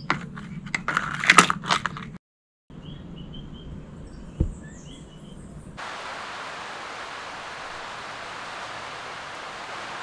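Metal toy cap-gun revolver clicking, a quick run of sharp clicks as its hammer and trigger are worked. After a break, a few short high chirps, then a steady even hiss of rain sets in about six seconds in.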